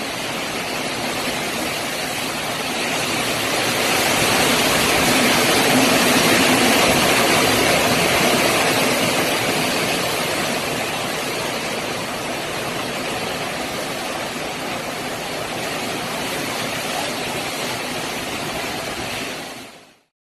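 Hurricane wind and rain: a steady rushing noise that grows louder a few seconds in, then eases and cuts off abruptly near the end.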